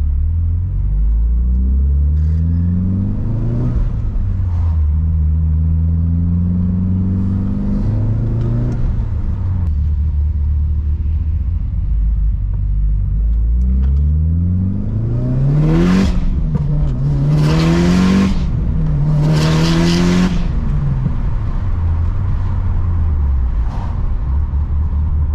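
Turbocharged Mitsubishi Lancer Evolution VIII four-cylinder with a new tune, idling and being revved several times in rising sweeps. Near the end come three sharper revs, each with a loud rushing hiss: the screamer pipe venting wastegate gas straight to the open air.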